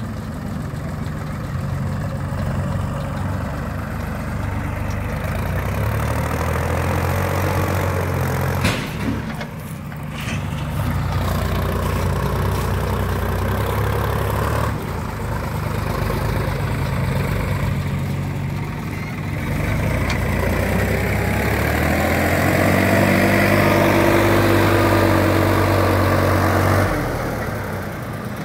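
Sonalika Sikandar DI RX 50 52 hp tractor's diesel engine working under load as it drags a loaded trailer through soft mud where it is stuck. The engine note rises and falls with the throttle, climbing to its loudest about three quarters of the way through, then dropping back near the end.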